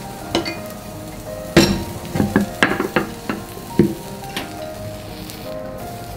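Kitchen knocks and clatter: a wooden cutting board set down on the counter with a knock about a second and a half in, then a quick run of light clicks and taps from chopsticks and an iron frying pan, with faint sizzling from a rolled egg omelette in the pan. Quiet background music plays underneath.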